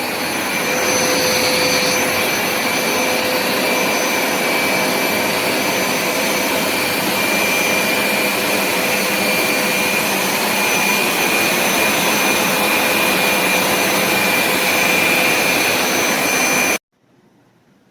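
Hoover SmartWash carpet cleaner's suction motor running: a loud, steady rushing noise with a high whine over it, which cuts off abruptly near the end.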